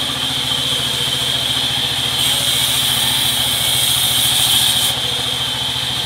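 Sawmill band saw running with its engine thudding at a steady beat and a constant high whine. From about two seconds in until near five seconds, a louder high hiss joins as the blade cuts through a rain tree plank.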